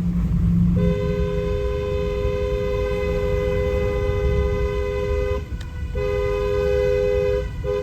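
Two-tone truck horn blown in one long blast of about four and a half seconds, a second blast of about a second and a half, then a few short toots near the end, over the rumble of the truck driving on a dirt road.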